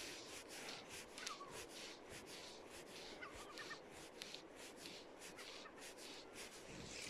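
A bird gives short calls that drop in pitch, once about a second in, then a quick few around three seconds, over the steady rush of the braided Rangitata River flowing past.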